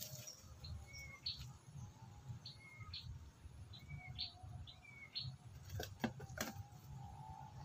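A bird calling over and over: short chirps that each rise quickly in pitch, about one or two a second, over a low rumble. Two sharp clicks about six seconds in.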